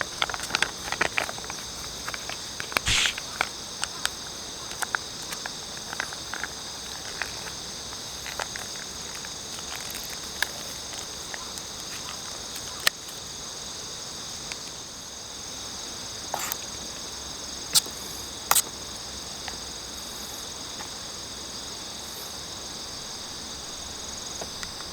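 Steady chorus of crickets and other insects chirping, with occasional short sharp clicks over it.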